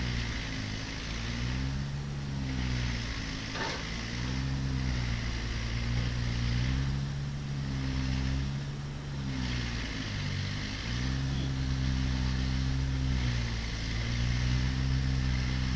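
A motor or engine running steadily with a low hum, its speed sagging and picking back up every few seconds, with a single sharp click about three and a half seconds in.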